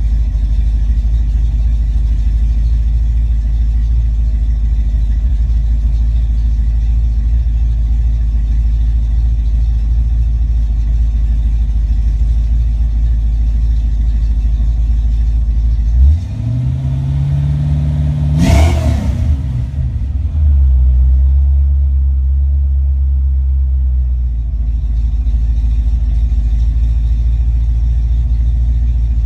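Fuel-injected small-block Ford V8 in a Fox-body Mustang idling steadily, revved once about sixteen seconds in, its pitch rising and then dropping back within about four seconds before it settles to an even idle again.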